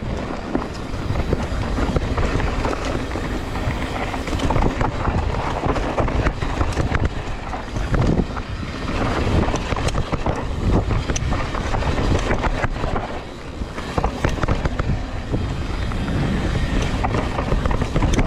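Mountain bike riding fast down a dusty, loose dirt trail: wind rumbling on the microphone and tyres on dirt, with frequent knocks and rattles as the bike goes over bumps.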